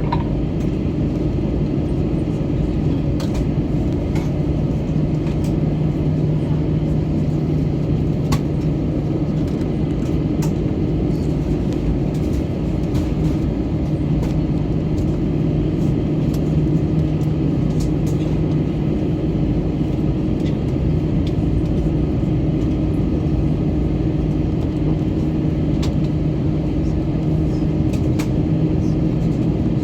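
Cabin noise inside an Airbus A321 with the jet engines running at low power: a steady rumble with a constant low two-note hum, with a few faint ticks.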